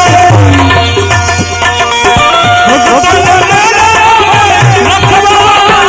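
Live Gujarati devotional bhajan music: a held melodic line over steady hand-drum beats.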